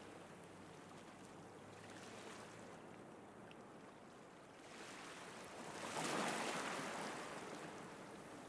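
Baltic Sea waves washing onto a sandy beach: a steady rushing that swells to a louder surge about six seconds in, then fades.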